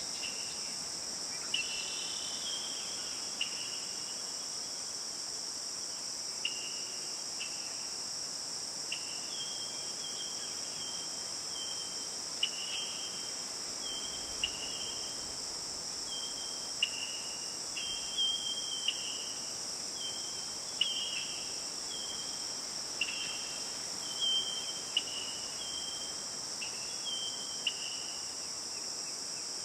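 Nature ambience: a steady, high-pitched insect drone, with short whistled calls, often two notes stepping up or down, repeating every second or so.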